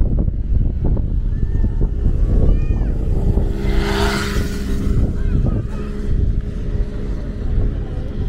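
City street traffic: a motor vehicle passes with a swell of tyre and engine noise about four seconds in, followed by a steady engine hum for a few seconds, over a constant low rumble. A few short chirps sound now and then.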